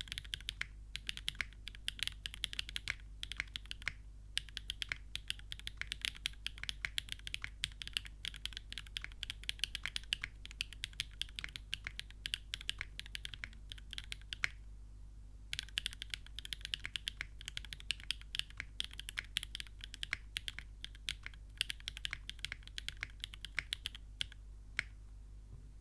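Fast continuous typing on a custom mechanical keyboard with Gateron x Siliworks Type R tactile switches in an aluminium plate and GMK keycaps: a dense run of bright key clacks. The typing stops for about a second just past the middle, then carries on and thins out near the end.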